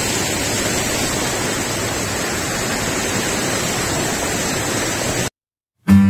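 Whitewater of a small waterfall rushing over rocks close to the microphone, a steady, full rush of water that cuts off suddenly about five seconds in.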